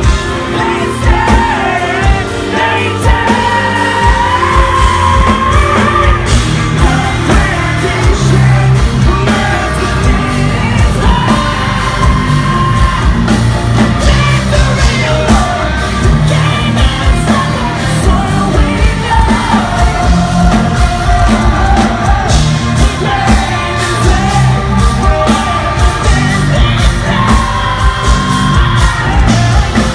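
Progressive metal band playing live, loud and close: heavy distorted guitars, bass and pounding drums, with a lead vocalist singing and shouting over them, heard from the front of the crowd in a large hall.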